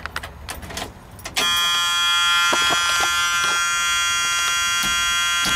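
A few light key clicks, then about a second and a half in a steady, high-pitched electric buzz starts suddenly and holds as the 1976 Ford F-250's ignition is switched on.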